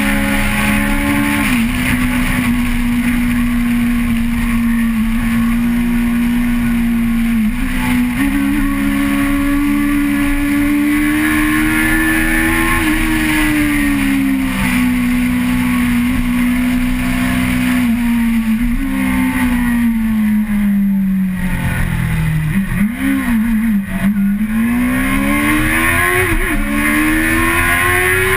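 Car engine heard onboard, running at high, fairly steady revs, its pitch shifting in small steps every few seconds. About two-thirds of the way through the revs fall low and waver, then climb back up.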